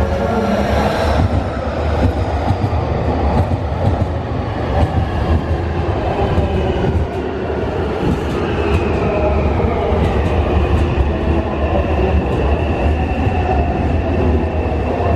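Nankai electric train running at close range: a steady rumble of wheels and running gear with the whine of its traction motors. The whine falls in pitch about eight seconds in.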